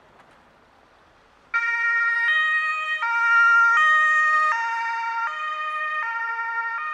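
Ambulance two-tone siren (German Martinshorn) switching on suddenly about a second and a half in, then alternating between a high and a low tone roughly every three-quarters of a second. Before it there is only a faint background hiss.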